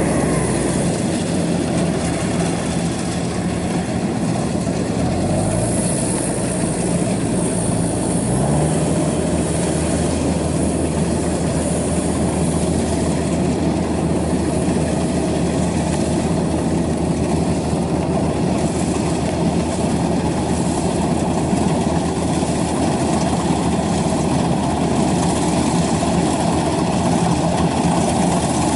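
Kubota DC-93 rice combine harvester running under load while harvesting: a steady diesel engine drone mixed with the rush of the cutting and threshing machinery. The engine note shifts briefly about eight seconds in, then settles again.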